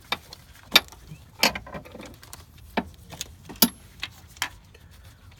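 About seven sharp metal clicks and clinks at irregular intervals, from hand tools and parts being handled in a car's engine bay.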